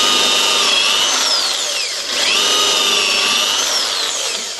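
Corded electric hand drill running while boring a hole through a plywood sled. The motor's pitch sags about a second in and picks back up, then winds down and stops at the end.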